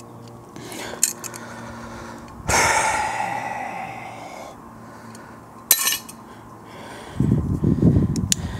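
Metal hand tool clicking and scraping against a car's pipe fitting, with a loud scrape about two and a half seconds in and a sharp click near six seconds. Strained breathing near the end.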